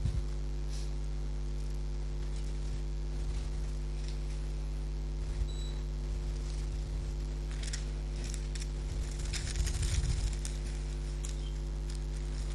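Bible pages being turned and rustled: scattered light rustles and clicks, busiest and loudest around eight to ten seconds in, over a steady low electrical hum.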